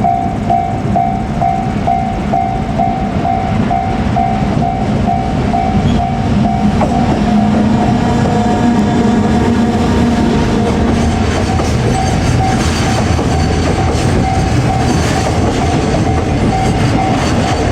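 A Japanese level-crossing warning bell rings in quick repeated strokes, about two a second, while a JR Freight EF510 electric locomotive hauling container wagons passes. The wheels clatter over the rail joints, and the train noise grows louder about six seconds in.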